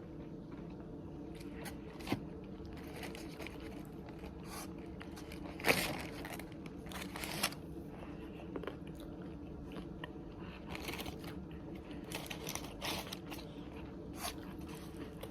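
A person chewing and crunching food, with scattered bites and sharper crackles, the loudest about six seconds in, over a steady low hum.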